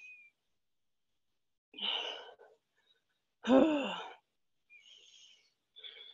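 A woman's heavy breathing after a hard exercise set: a breathy exhale about two seconds in, then a louder voiced sigh falling in pitch, and faint breaths near the end, with dead silence between them.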